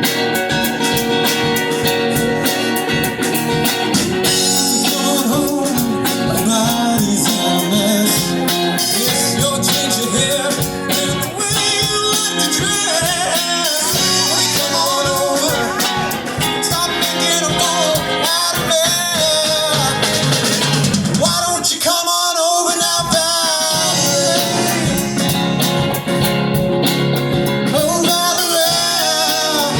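Rock and blues-style song with singing over guitar and drums.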